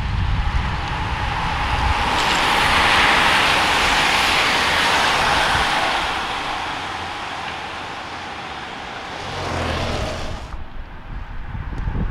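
A large pack of road racing bicycles sweeping past: a hissing rush of tyres on asphalt and air that swells about two to three seconds in and fades over several seconds. Low wind rumble on the microphone at the start, and the sound cuts off suddenly near the end.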